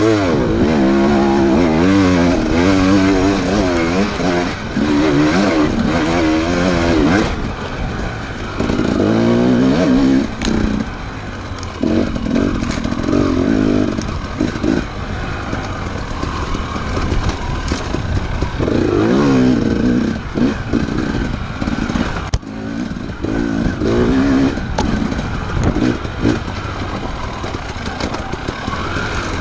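Off-road motorcycle engines revving hard, their pitch rising and falling again and again as the bikes accelerate and back off, sometimes more than one engine at once.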